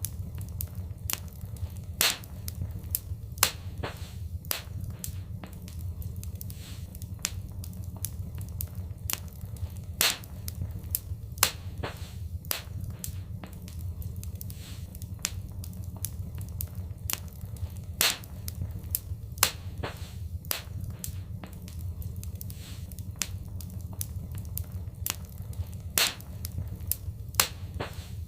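Wood fire in a fireplace crackling, with frequent sharp small pops and snaps over a low steady rumble of flame. Louder pops come in pairs about every eight seconds.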